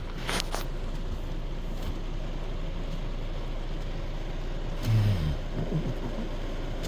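Heavy rain falling steadily, with a few sharp ticks near the start and a brief low rumble about five seconds in.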